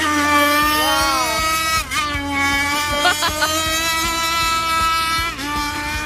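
Remote-control speedboat motor running flat out, a steady high-pitched whine that dips briefly in pitch as the throttle eases, about two seconds in and again near the end.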